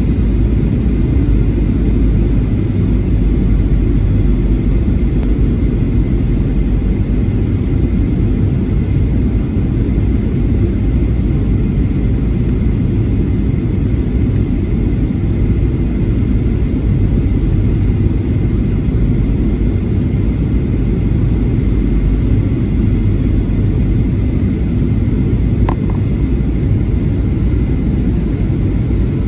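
Steady low roar inside an airliner cabin on the descent to landing: jet engines and rushing air rumbling evenly, with a faint steady high whine over it.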